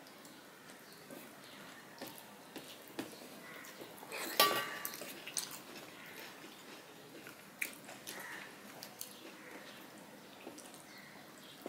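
Fingers mixing rice and curry by hand in stainless steel plates: soft wet squelches and small scattered clicks against the metal, with one louder clink that rings briefly about four and a half seconds in.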